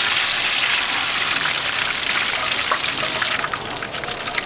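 Battered food deep-frying in hot oil: a loud, dense sizzle that thins out about three and a half seconds in to a lighter popping crackle.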